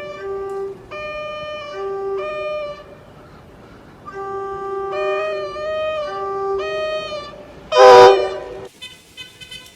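A musical horn plays a short tune of held notes, each note a chord of several steady pitches, with a pause of about a second in the middle. About eight seconds in comes one very loud, brief horn blast, then an abrupt cut to a quieter sound with faint clicks.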